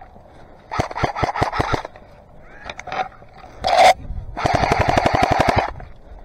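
Airsoft gun firing on full auto: a short burst about a second in, then a longer, faster burst past the middle. Between them there is a brief loud noise.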